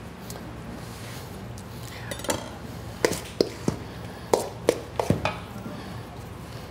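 A spoon clinking and scraping against a stainless steel mixing bowl as its contents are stirred: a run of irregular metallic knocks starting about two seconds in.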